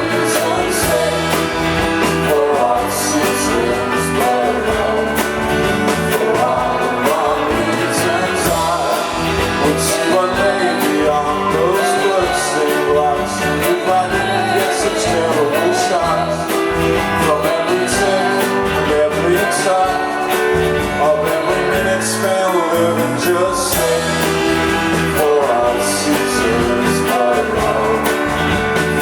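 Live band playing a song with a lead vocal.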